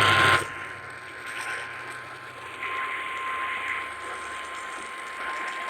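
Emergency alert attention tone of NOAA Weather Radio: a single steady 1050 Hz tone held through, heard over a radio receiver with hiss and static. It opens with a short burst of noise.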